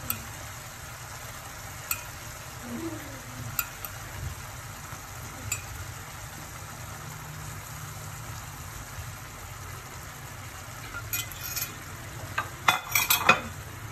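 Thick tamarind sambal sauce bubbling at a simmer in a non-stick frying pan, a steady low sizzling bubble. A few light clicks against the pan, and a louder clatter of them near the end.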